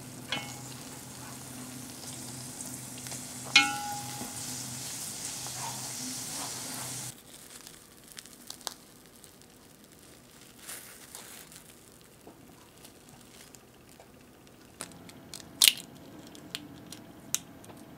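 Doughnut deep-frying in hot oil, a steady sizzle with one sharp knock about three and a half seconds in. About seven seconds in the sizzle cuts off; soft handling clicks follow, then an egg is cracked sharply against a bowl near the end.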